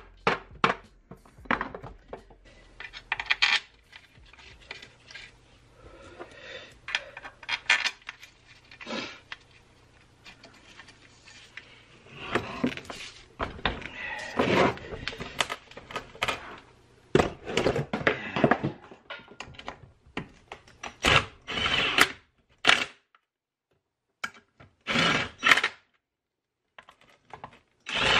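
Irregular metallic knocks, clunks and scraping from handling an NV-T350 manual transmission's aluminium case on a workbench. A quick run of taps comes at the start, and denser bouts of clatter follow later, with short pauses between them.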